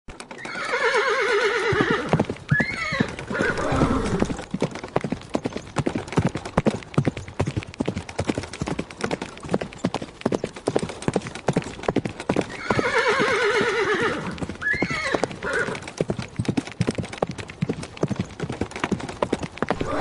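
A horse whinnies, then its hooves beat rapidly as it runs. The whinny-then-hoofbeats sequence repeats about twelve seconds in.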